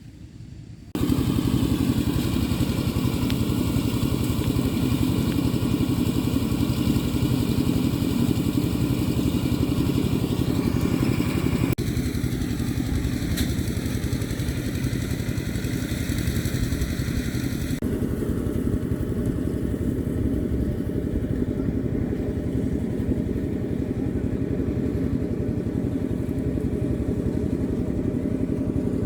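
A small engine running steadily, starting abruptly about a second in; its sound changes abruptly twice.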